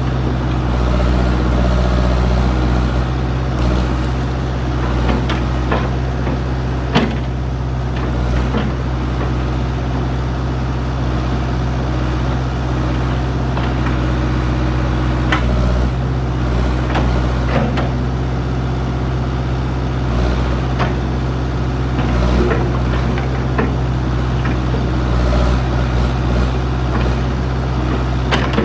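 Old backhoe's engine running steadily, with scattered knocks and clanks, the loudest about seven seconds in.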